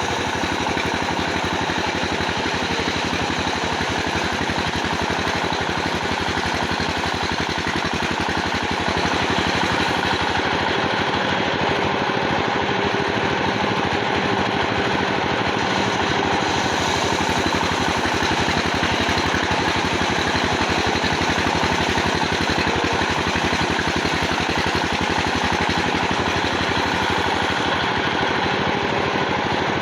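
Sawmill machinery running steadily, a loud engine-like drone with a fast, even pulse, stepping up slightly in level about nine seconds in.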